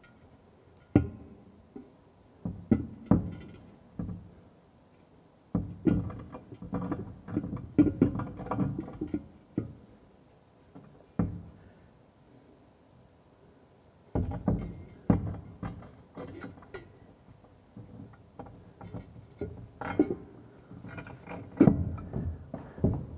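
Ceramic wash basin being worked onto its wall-mounting bolts, knocking and clunking against the wall and bolts in irregular clusters of knocks with quiet gaps between.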